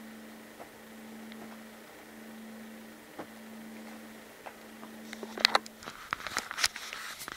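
A faint steady low hum, then a quick run of sharp clicks and rattles of close handling, starting about five seconds in.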